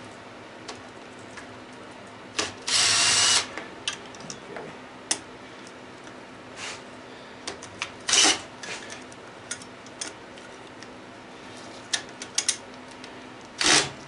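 Cordless drill spinning a bolt out of a garbage disposal's housing while its nut is held with pliers: a burst about a second long near three seconds in, shorter bursts later, and small metal clicks in between.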